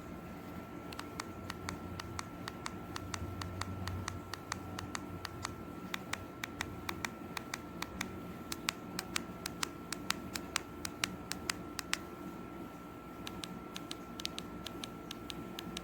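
TV remote control buttons being pressed again and again, giving a run of quick, irregular clicks, over a faint steady high tone and a low hum.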